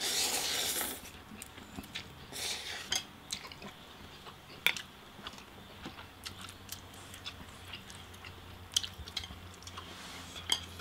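Noodles slurped up at the start, then quiet chewing with scattered light clicks of chopsticks on plates.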